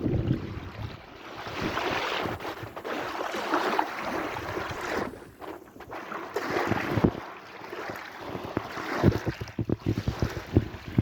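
Sea waves washing in and drawing back in slow swells, with wind buffeting the microphone: a heavy low rumble at the start and a run of short thumps near the end.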